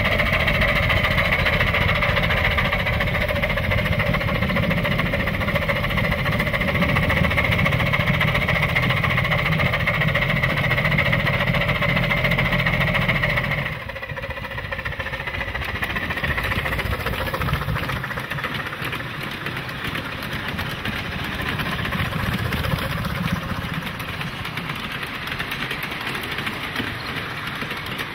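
Oil-fired 9-inch gauge live steam locomotive running with a train of riding cars, heard close up as a steady mechanical running sound. About halfway it gives way to a quieter, rougher sound of the train rolling across a wooden trestle.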